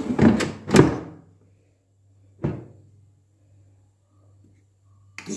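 Karaca Air Pro Cook air fryer basket drawer being pushed in with some clattering, then shut with a single thunk about two and a half seconds in.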